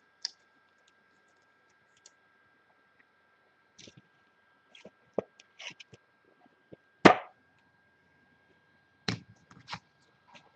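Scattered clicks and taps of trading cards and their packaging being handled, with one louder knock about seven seconds in and two more a couple of seconds later.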